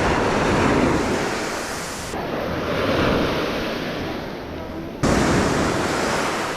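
Ocean surf breaking and washing on the beach, mixed with wind buffeting the microphone, as a steady loud rush. The sound changes abruptly about two seconds in and again about five seconds in.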